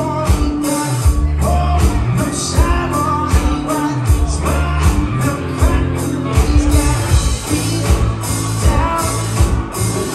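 Live band playing: a singer over electric guitar, bass guitar, drums and keyboard, with a steady drum beat.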